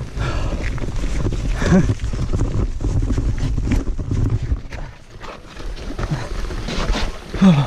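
Mountain bike riding through a rock garden: tyres and frame rattling over rocks, with wind on the microphone. Twice, about two seconds in and near the end, the rider gives a short wordless vocal sound that falls in pitch.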